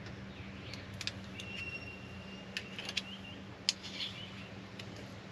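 Light clicks and taps of a metal spoon scooping soft dairy-free spread from a tub and dropping it into a rice-cooker pot, over a low steady hum. A thin high tone, like a faint squeak or chirp, holds for about a second and a half from about a second and a half in.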